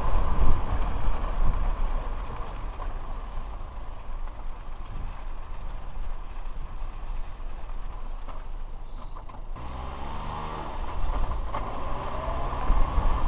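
New-model Suzuki Jimny being driven: engine and road noise, loudest at the start, dropping after about two seconds and building again near the end, with an engine tone coming in about ten seconds in.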